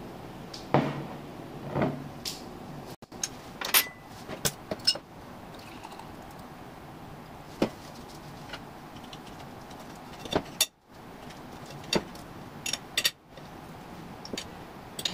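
Homemade beer being served from a swing-top glass bottle into a stemmed glass: a scattered series of sharp clicks, clinks and knocks of glass and the bottle's clasp being handled.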